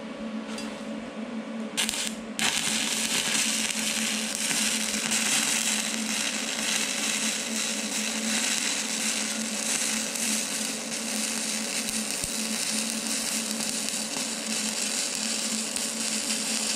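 Stick-welding arc from an E308L-16 stainless steel rod at 60 amps on mild steel. A brief strike about two seconds in, then a steady crackling hiss that stops at the very end as the arc is broken. A low steady hum runs underneath.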